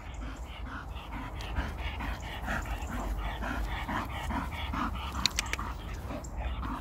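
Bull terrier panting rapidly and evenly, tired out from fetching. A few short clicks come a little after five seconds in.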